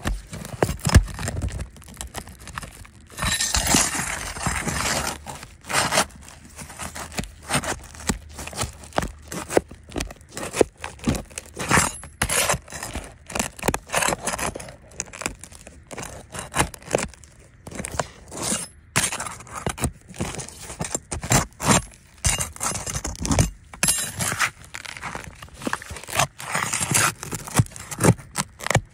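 Asphalt roof shingles being handled, with tabs pried up off their seal: a long run of irregular gritty scrapes and sharp crackles. This is a shingle repair test of whether the sealed tabs will lift without breaking.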